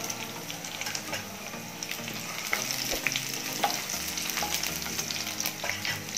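Garlic cloves, dried red chillies and mustard seeds sizzling in hot oil for a tempering, stirred with a wooden spatula in the pan. A steady sizzle with scattered sharp pops and crackles.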